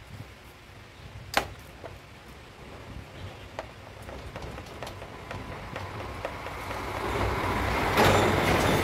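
Hand tools at work on a scooter's front end while a 10 mm bolt is taken out: a sharp metal click about a second and a half in, a few lighter clicks, then a scraping, rattling noise that grows louder near the end.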